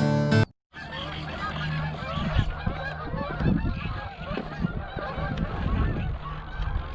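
Acoustic guitar music cuts off about half a second in. Then a flock of birds calls over and over in quick, overlapping honks, with wind buffeting the microphone.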